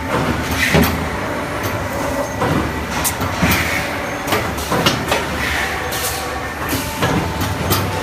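Abrasive velcro disc punching press and factory machinery running: a steady mechanical rumble with sharp knocks about every one to one and a half seconds while abrasive sheet is fed through by hand.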